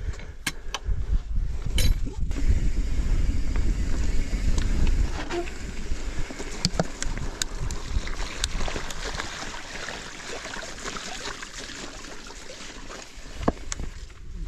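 Mountain bike tyres splashing and crunching along a wet, stony stream-bed track, with scattered sharp ticks of stones and water. Wind rumbles on the helmet microphone during the first few seconds.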